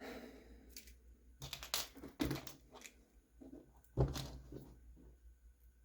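Small parts and tools being handled and rummaged through during hobby assembly: scattered light clicks and rustling, with sharper knocks about two seconds and four seconds in.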